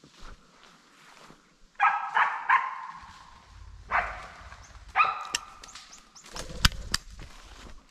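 Dog barking several times in short, sharp barks, then two sharp clicks close together near the end: a shotgun misfiring.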